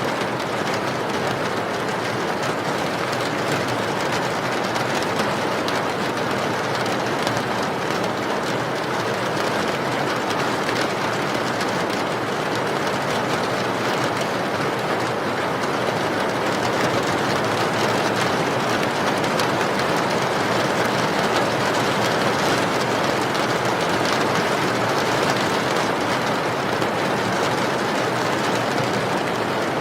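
Steady, unbroken rain noise.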